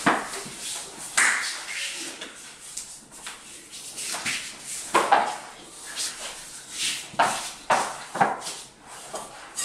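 Irregular thuds, knocks and scuffs of people clambering about and flopping down on a tiled floor and rug.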